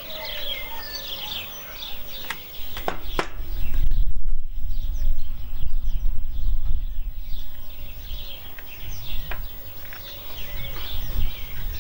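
Small birds chirping and singing. From about four seconds in, an uneven low rumble of wind buffeting the microphone drowns them out for several seconds, and there are a few sharp clicks.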